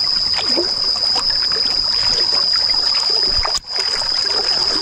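Stream water flowing and splashing, with a steady high-pitched whine over it. The sound cuts out for an instant about three and a half seconds in.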